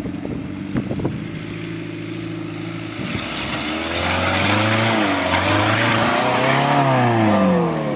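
Mahindra 4x4's engine climbing a steep hill under load: running steadily at first, then louder from about halfway, the revs rising and falling several times with a hiss over it, and dropping away near the end.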